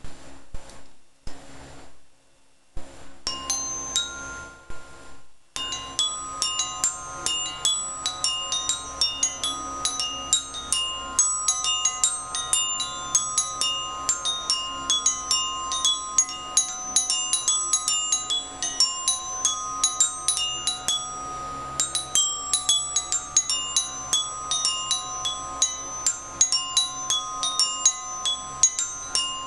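Glockenspiel struck with mallets: a few single ringing notes at first, then from about five seconds in a quick, continuous run of notes, each one ringing on.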